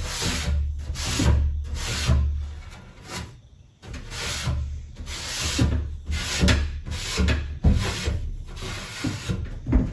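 Rubbing strokes on a wooden closet shelf, back and forth about one to two times a second, with a short pause about three seconds in.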